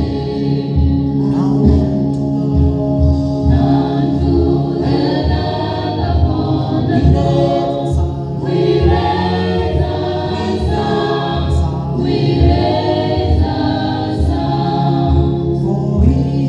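Gospel praise song: voices singing over a band with a held bass line and a steady beat.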